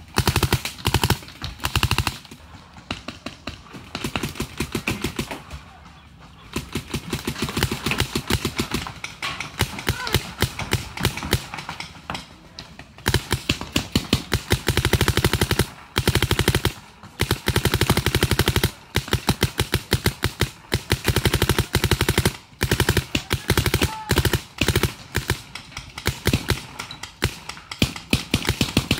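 Paintball markers firing rapid strings of shots, a fast rattle of sharp pops in bursts with short pauses between them.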